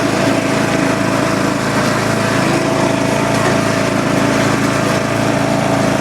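John Deere LA100 lawn tractor's engine running steadily at a constant speed.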